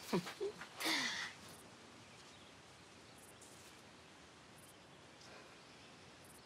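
A short, soft sigh-like breath with a falling pitch about a second in, then a faint, steady background hush.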